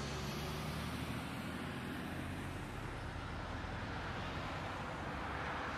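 Steady low engine hum and traffic noise heard from inside a car's cabin through a dashcam microphone, with the car idling or creeping in slow traffic.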